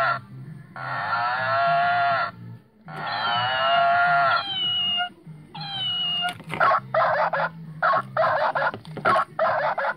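Plastic animal sound toys tipped over, giving toy animal cries. First come three long cries, the last trailing off in falling tones. A short falling cry follows, then a quick run of about seven short chopped cries as a toy is rocked back and forth.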